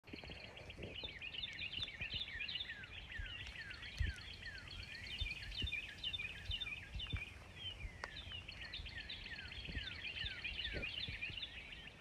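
Small birds chattering continuously, many quick overlapping chirps sliding downward, over a low rumble of wind on the microphone with occasional low thumps, the loudest about four seconds in.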